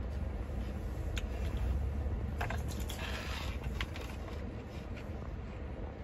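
Spoon scraping and rustling through lettuce in a salad container, with a few sharp clicks and a scratchy burst of rustling about three seconds in, over a steady low rumble inside the car.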